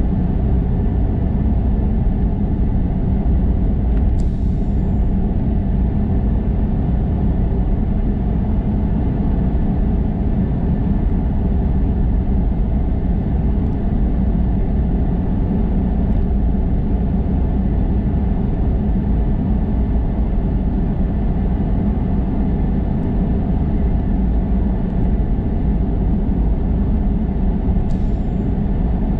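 Steady road and engine noise of a car driving, an even low rumble that holds level throughout.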